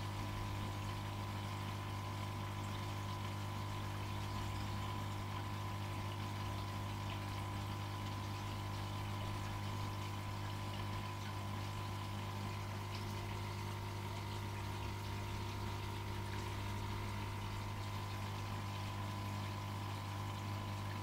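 Aquarium filter pump humming steadily, with water running and bubbling.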